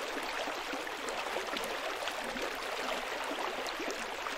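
Running water, a steady stream of small splashes and gurgles.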